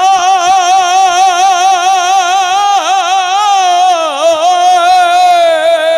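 A man singing a Saraiki naatia dohra into a microphone, drawing out one long held note with a wavering vibrato. The pitch wobbles around the middle and slides down a little near the end.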